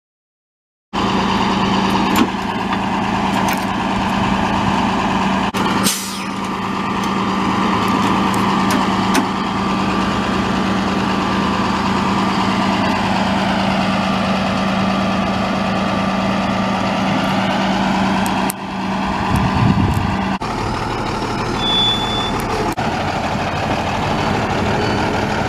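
Flatbed tow truck's diesel engine running steadily, a loud even hum that starts about a second in, with a short sharp hiss about six seconds in and a few short high beeps near the end.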